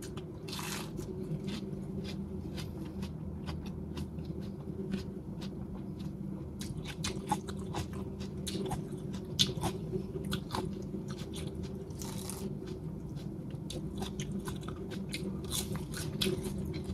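Close-miked crunching of a raw lettuce leaf being bitten and chewed: a bite near the start, then many small crisp crunches, over a steady low hum.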